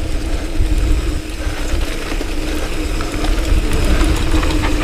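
Mountain bike rolling fast down a dirt singletrack, with a steady hum from the bike over a constant rumble of wind on the microphone.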